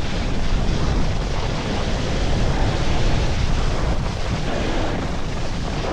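Wind on the microphone and a snowboard sliding fast over icy snow: a steady rushing noise.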